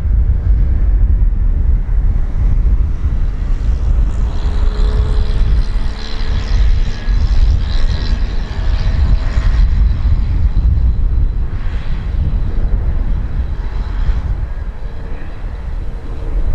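Boeing 787 jet airliner climbing after takeoff: a steady, deep engine rumble, with a high fan whine and humming tones coming in through the middle as it passes closest, then easing.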